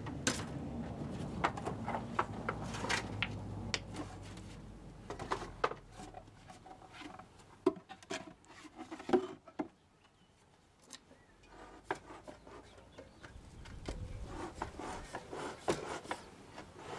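Irregular rubbing and scraping with scattered light knocks, over a low rumble for the first few seconds; it quiets to a brief lull about ten seconds in, then the scraping and knocking pick up again.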